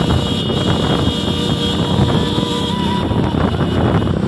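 Several motorcycle engines running together in a moving pack, with wind rushing over the microphone.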